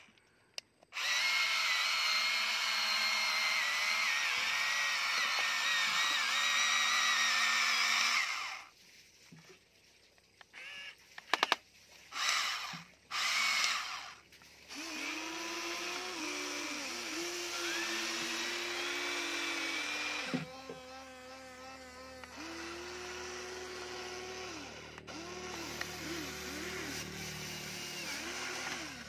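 Electric motors of a Huina remote-control toy excavator whining as its arm, bucket and tracks move. A long run of several seconds comes first, then a few short bursts, then longer runs with a lower tone that rises and falls as the motors change speed.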